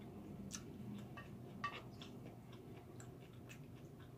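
Faint, irregular clicks and scrapes of a wooden spoon against a glass bowl of rice, with quiet chewing; one sharper click about a second and a half in.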